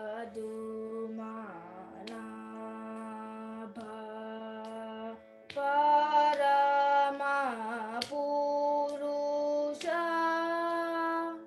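A young singer singing one line of Carnatic music over the steady drone of a shruti box, heard through a video call. The voice grows louder about halfway through and wavers in ornamented pitch bends, while the drone holds unchanged beneath it.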